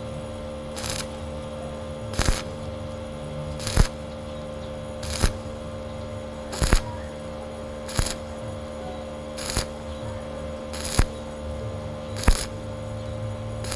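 Stick-welding arc struck in short crackling bursts, about one every second and a half, laying thin galvanized pipe in separate stitches, over a steady hum.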